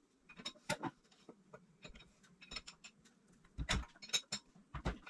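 Irregular light clicks and taps of hand tools and small metal parts being handled on an engine, with a few louder knocks about a second in and again near the end.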